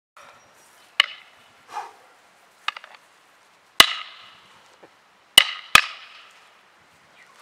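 Fighting sticks clacking in a stick fight, a string of sharp cracks. There is one crack about a second in and a quick rattle of three a little later, then a loud crack and a closely spaced pair, which are the loudest.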